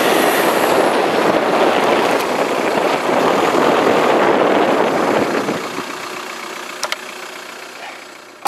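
Volkswagen Golf Mk4 making a rough scraping, grinding noise while turning slowly to the right, fading out after about five and a half seconds, with a sharp click near the end. The noise appears only on right turns, not left; its cause is unknown.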